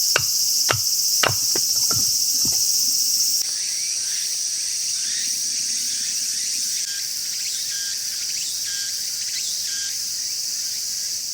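Steady high-pitched chorus of insects, crickets or similar, with a series of sharp knocks about twice a second in the first two and a half seconds.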